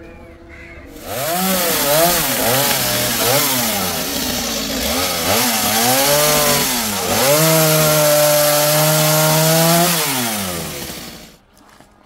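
Stihl chainsaw cutting branches, its engine pitch rising and dipping several times as the chain bites, then held high and steady for a few seconds. The revs fall away and the sound ends about a second before the end.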